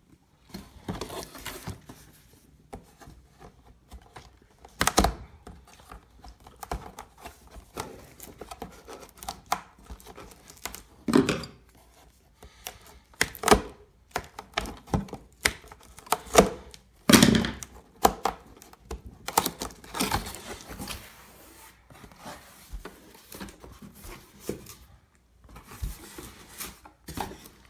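A cardboard box being cut open with scissors and pulled apart: irregular scraping, clicking and tearing of cardboard, with several louder thumps.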